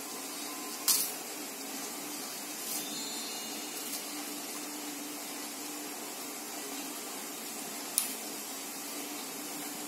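Thin plastic bag crinkling in a sharp snap about a second in and again near the end, as leafy greens are pulled from it, over a steady background hiss.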